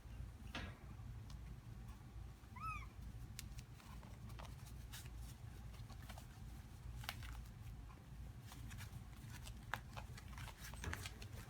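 Havanese puppy giving one short, high whimper about two and a half seconds in, over scattered light clicks and scuffles and a steady low hum.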